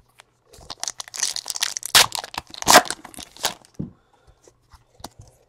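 A 2017 Donruss baseball card pack being torn open by hand: a run of crinkling, tearing crackles, loudest about two seconds and nearly three seconds in.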